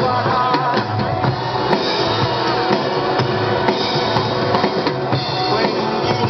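Loud rock music with a drum kit to the fore, kick and snare beating steadily under the rest of the band.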